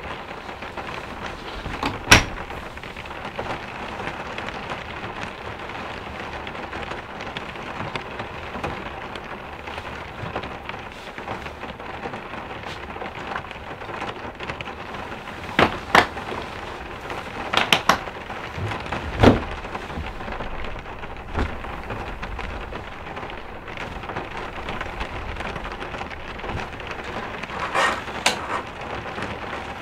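Steady rain on the cabin's roof and walls, heard from inside, with a few sharp knocks and clunks standing out above it: one about two seconds in, several in quick succession past the middle, and a pair near the end.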